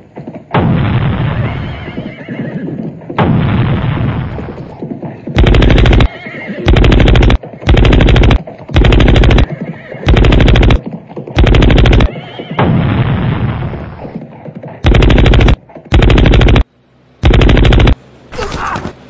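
Recorded battle sound effects: a horse whinnying twice, then about nine short, loud bursts of machine-gun fire, with another long noisy sound between them.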